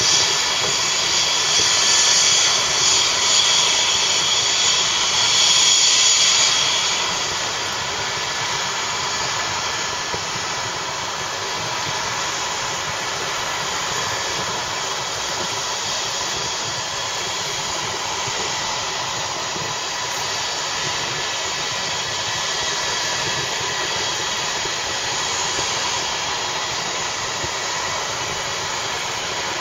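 Helicopter turbine engine running on the ground: a steady high-pitched whine over a rushing hiss. About seven seconds in the whine falls away and the level drops, leaving a steadier, quieter hiss.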